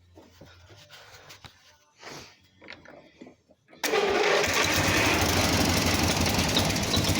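Simplicity 4212 garden tractor's engine starting on the first try about four seconds in, after a few faint clicks, then running steadily with a fast, even pulse.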